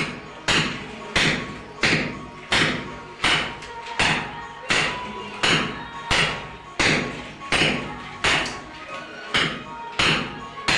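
Background music with a steady beat: a sharp drum hit about every two-thirds of a second, over faint held tones.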